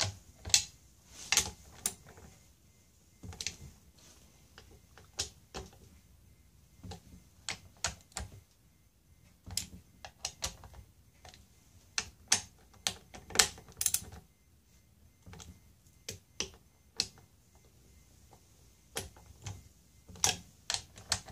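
Small ratcheting torque wrench clicking in short, irregular runs as the throttle body bolts are snugged lightly into the aluminium intake manifold.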